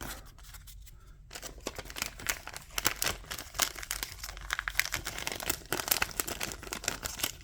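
Plastic booster pack wrapper crinkling and tearing as a Magic: The Gathering collector booster is handled and opened, a dense crackle starting about a second in.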